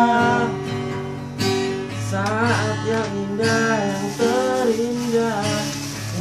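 Acoustic guitar being strummed as accompaniment while a man sings, holding a long note at first and then carrying a wavering melodic line.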